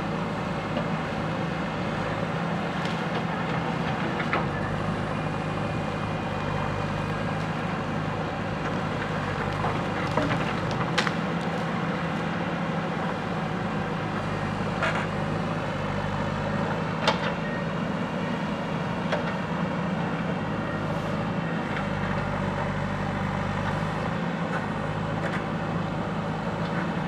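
JCB 3DX backhoe loader's diesel engine running steadily while it works through brush. A few sharp cracks of snapping wood break in now and then.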